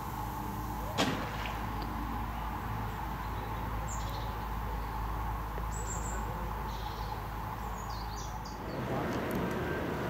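Steady low outdoor rumble with a single short, sharp swish about a second in, just after a carp rod has been cast. A few short bird chirps follow, and the background changes near the end.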